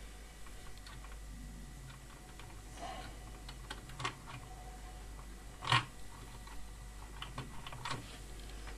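Faint handling noises: small clicks and rustling as a hand and sleeve work among the heater's wiring, with one sharper click a little past halfway, over a low steady hum.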